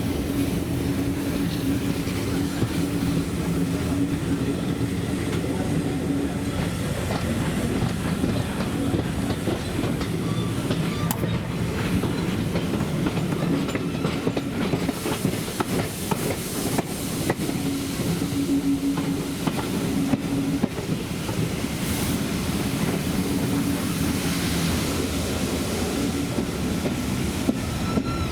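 Train running along the track: a steady rumble of wheels on rail with the clickety-clack of rail joints, and a steady low hum that comes and goes.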